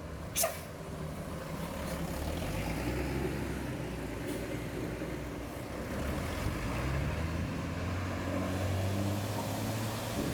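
Heavy bus engine running close by, its note rising in the second half as it speeds up. A short sharp hiss of air comes about half a second in.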